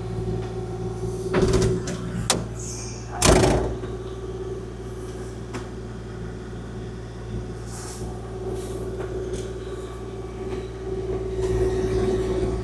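Kubota KX040-4 mini excavator's diesel engine running steadily while it plows snow with its blade, with three sharp knocks and clunks in the first few seconds.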